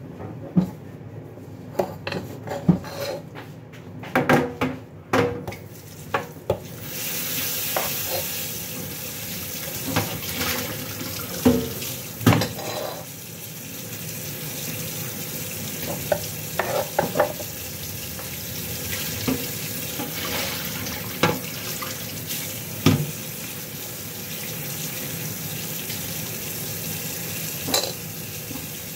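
Food sizzling in a hot pan: a steady hiss that starts about seven seconds in. Over it come scattered knocks and rustles of food being handled on a wooden cutting board.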